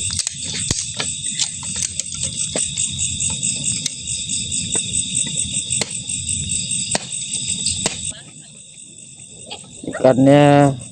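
Night insects chirring, a steady high pulsing trill, over scattered sharp clicks and a low rumble that drop away about eight seconds in. A short voiced sound comes near the end.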